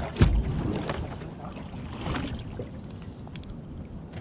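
Wind buffeting the microphone over water moving against a boat hull, with a sharp low thump just after the start and a few light clicks.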